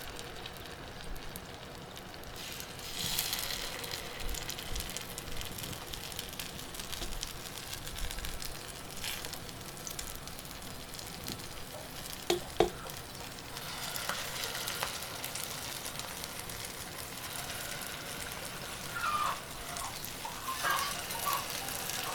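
Idli batter being poured into hot oil in the cups of a paniyaram pan, sizzling and crackling as it starts to fry. A single sharp knock about halfway through is the loudest moment.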